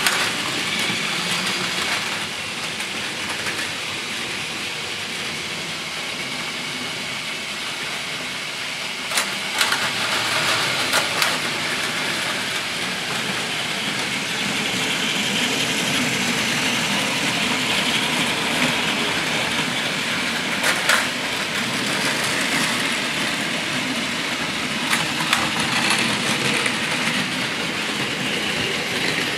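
Several battery-powered Plarail toy Shinkansen trains running on blue plastic track: a steady sound of small motors and wheels, with a few sharp clacks about nine to eleven seconds in and again near twenty-one and twenty-five seconds.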